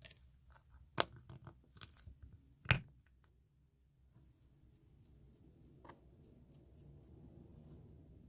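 Close-miked ASMR handling sounds: a few sharp clicks and taps, the loudest about one second in and again nearly three seconds in, then soft crackly rustling with faint ticks.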